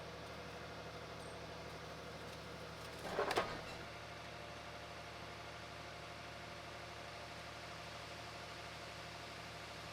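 Honda engine on a portable sawmill idling with a steady hum, described as pretty quiet. A brief clatter of several quick knocks cuts in about three seconds in.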